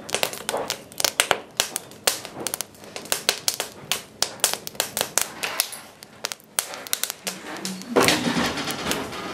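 Coal fire burning in a stove, crackling and popping with irregular sharp clicks. About eight seconds in, a louder, denser rush of noise takes over.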